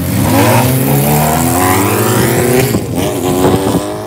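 A motorcycle engine revved several times, its pitch rising and falling, then easing off near the end.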